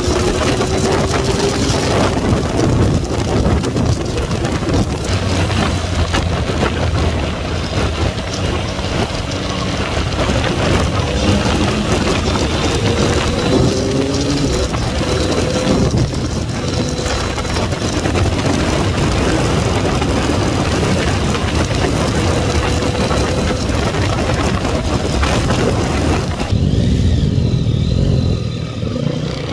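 Yamaha MT-09 three-cylinder motorcycle engine running at road speed, its pitch rising several times as it pulls through the gears, under a rush of wind on the microphone. Near the end the wind noise drops away as the bike slows.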